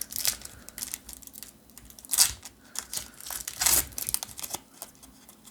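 Foil Pokémon booster pack wrapper crinkling as it is handled and torn open, in irregular crackles with louder bursts about 2 and 3.5 seconds in.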